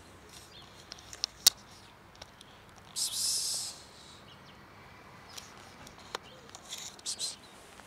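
Brief rustling scuffs on gritty pavement, the loudest about three seconds in, with a few sharp clicks, as of footsteps and handling while following a cat.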